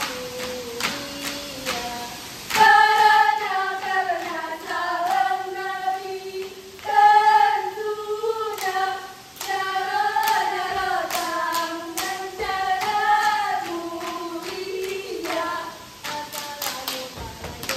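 Ratoh Jaroe dance: quick, rhythmic hand claps and slaps on the thighs, with a female voice singing a song for most of the middle stretch; the slapping comes back near the end.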